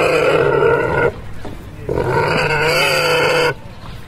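Pot-bellied pig squealing: two long, loud, pitched squeals. The first ends about a second in; the second, wavering in pitch partway through, lasts about a second and a half.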